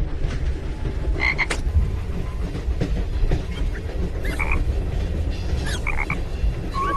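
Steady low rumble of a theme-park train ride carriage, with a few short high squeaky calls over it about a second in, around four seconds in and around six seconds in.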